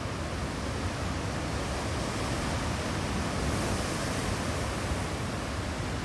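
Ocean surf: waves breaking and whitewater washing up the shore in a steady rush, swelling a little about halfway through.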